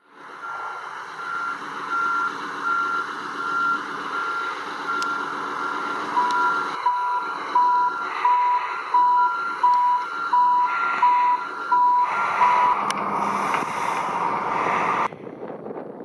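Two reversing alarms on construction machines beeping at the same time over engine noise. The higher one beeps about twice a second throughout, and a lower one joins about six seconds in, beeping a little faster. Both stop about thirteen seconds in.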